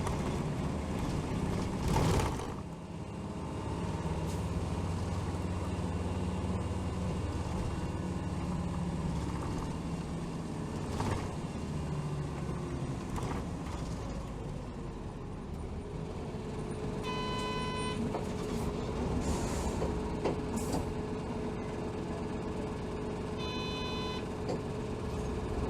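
Interior running sound of a 2007 Hino Rainbow HR city bus (BDG-HR7JPBE): the diesel engine and drivetrain running under way, with a short burst of air about two seconds in. A steady whine joins in past the middle, and two short electronic beeps sound about six seconds apart in the second half.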